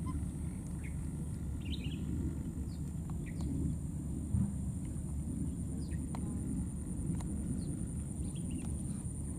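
Outdoor ambience: a steady low rumble of background noise, with faint, scattered short bird chirps and a constant high-pitched whine.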